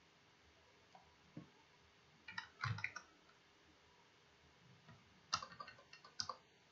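Computer keyboard keys clicking as a short word is typed, in two quick bursts about two and a half seconds in and again just after five seconds, with a couple of single soft clicks before them.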